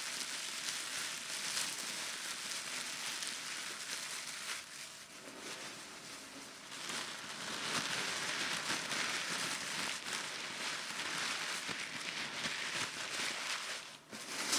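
Gift wrapping crinkled and rustled by hand in a steady, dense crackle, easing off for a moment about five seconds in before picking up again.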